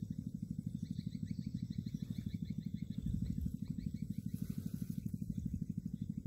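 A small engine running steadily, a fast even low throb, with faint high chirps repeating over it.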